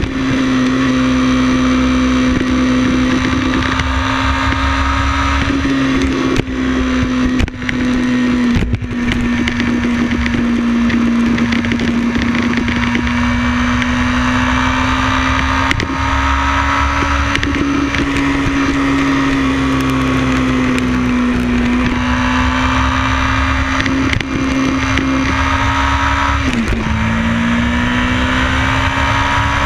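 Motorcycle engine running at a steady cruising pitch that drifts slightly up and down, over a constant rush of wind and road noise. Near the end the engine note drops sharply and then climbs again.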